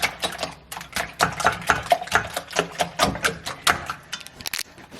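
Rapid, even tapping of a kitchen utensil, about four to five strokes a second, pausing briefly near the end.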